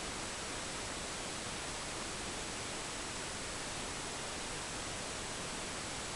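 Steady hiss of the recording's background noise, with a faint high-pitched whine running through it.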